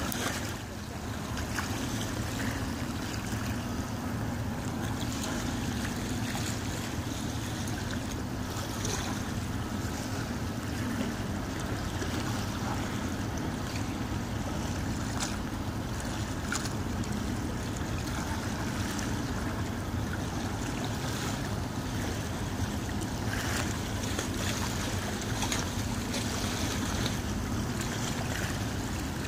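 Wind on the microphone and small waves lapping at the shore, over a steady low drone of ships' engines.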